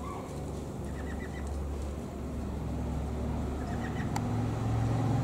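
Steady low rumble with two short runs of faint, quick peeping calls from the small captive ducks (whistling ducks and teal) in the aviary, about a second in and again near four seconds.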